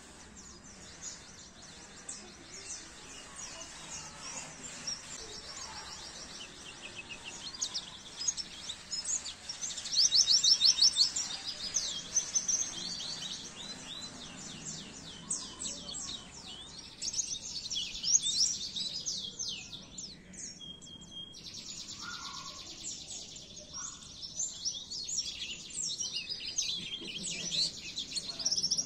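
Oriental white-eye (pleci) singing a long, rapid, high twittering song of quick chirps and trills, loudest about ten seconds in and again around seventeen seconds.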